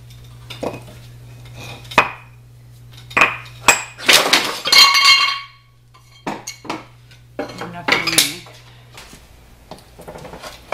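Cast-iron and steel parts of an old Chandler & Price platen press knocking and clanking as it is taken apart. Scattered sharp knocks give way to one loud, ringing metal clatter a little past the four-second mark.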